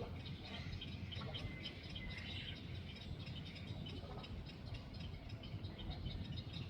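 Small birds chirping, many short high calls overlapping throughout, over a steady low background rumble.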